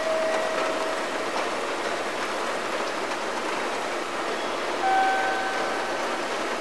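Railway station ambience between announcements: a steady wash of train and platform noise. A brief steady tone sounds near the start and another about five seconds in.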